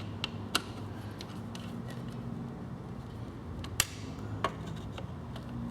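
Scattered light clicks and ticks of a small screwdriver loosening screws on a plastic RC truck chassis, with a sharper click near the start, another about half a second in and two more near four seconds. Under them runs a steady low hum.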